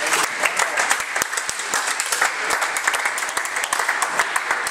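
Small crowd of spectators applauding, a dense patter of individual hand claps.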